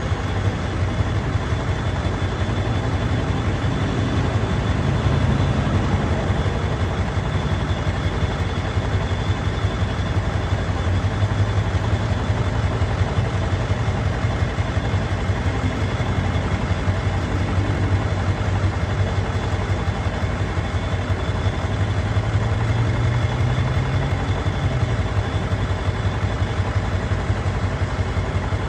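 Diesel truck engine idling steadily with a fast, even beat.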